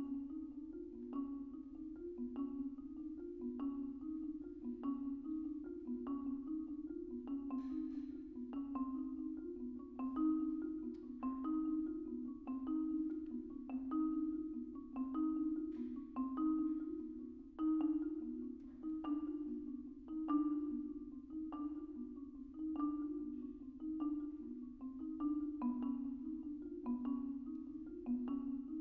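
Marimba played with soft yarn mallets: a continuous stream of rapid repeated notes in the middle-low register, with higher notes struck above it at an even, unhurried pace.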